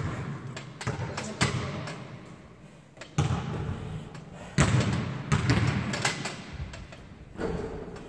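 Irregular thuds echoing in a large gym hall, about one to two a second, loudest past the middle.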